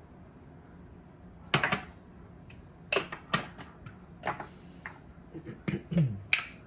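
A metal spoon clinking and tapping while black pepper is spooned onto raw steaks: a few sharp, irregular clicks and knocks, more of them near the end.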